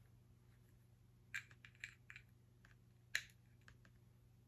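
A few light plastic clicks and taps from a small white cable adapter being handled, the sharpest about three seconds in, against near silence.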